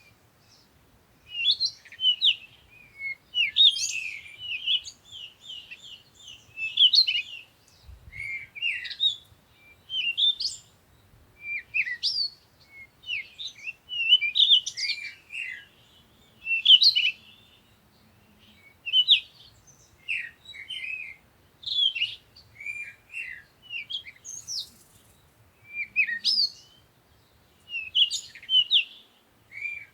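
Songbird song: short, quick, chirpy phrases repeated over and over, one about every one to two seconds with short pauses between.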